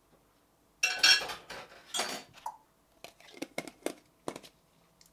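Cutlery and dishes clattering in a kitchen, likely a used metal spoon being tossed aside: two loud clatters about one and two seconds in, then several light clinks and taps.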